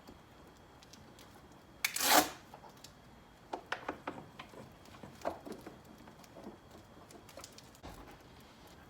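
Plastic headlight housing being pushed and worked into place in a pickup's front end: a short loud scraping burst about two seconds in, then a scatter of light plastic clicks and knocks.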